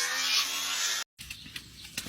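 A small electric power tool runs with a steady buzzing whine, then cuts off abruptly about a second in. A much quieter stretch with a few light clicks follows.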